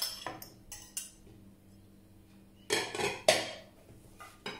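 Metal fork clinking and scraping on a ceramic plate, a few quick clinks in the first second; about three seconds in, a louder clatter of dishes with one sharp knock as the plate is handled and set down.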